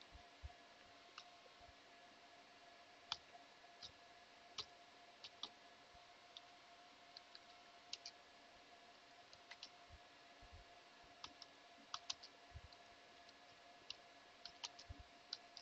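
Faint computer keyboard keys being typed slowly, heard as sharp irregular clicks a few per second over a faint steady hum.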